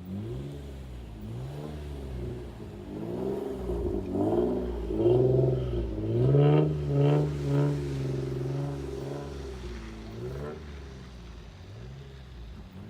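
Infiniti G35's 3.5-litre VQ35DE V6 revving up and down repeatedly through test pipes, a Bosal catback and a leaky Y-pipe, loud. There are several quick rises and falls, and a higher rev is held for a few seconds in the middle before it drops back.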